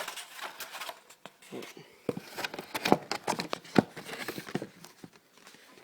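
Packing materials and items being handled and pulled out of a shipping box: rustling with scattered sharp knocks and clicks, the loudest two about three and four seconds in.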